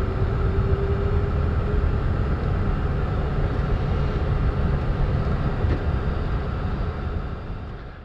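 Airbus A310-300 rolling down the runway after landing: a steady low rumble of engines at idle and wheels, with a faint steady tone that fades away in the first two seconds. The whole sound fades out near the end.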